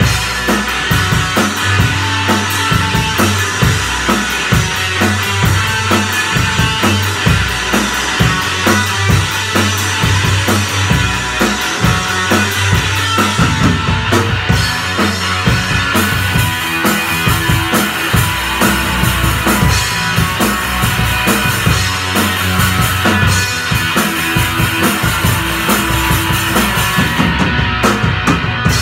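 Live rock band playing instrumentally: a drum kit with a steady kick-drum beat, electric bass and electric guitar.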